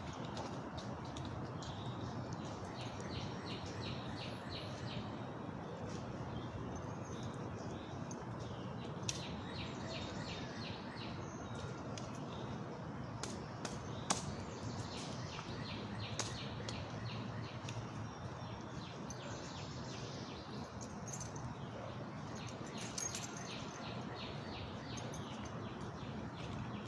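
Birds chirping in quick runs of high repeated notes over a steady outdoor background hiss, with a couple of sharp clicks.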